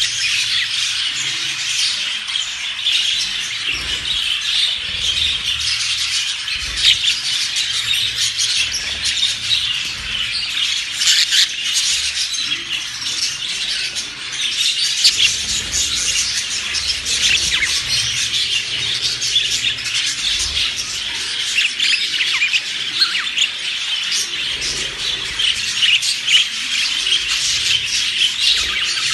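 Many small birds chirping and squawking at once, a dense, continuous overlapping chatter of short high calls with no pause.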